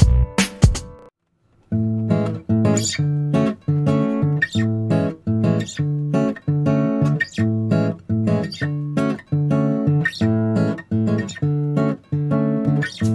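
Background music: one track cuts off less than a second in, and after a brief silence a new track begins with plucked guitar chords in a steady rhythm, about two a second.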